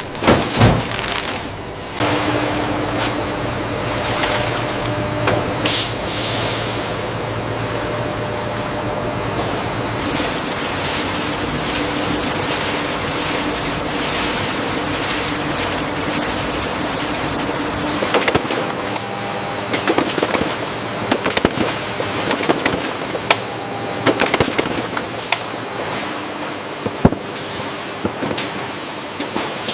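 Factory production-line machinery running, with a dense clattering noise and steady hums. From about two-thirds of the way through come many rapid clicks and rattles.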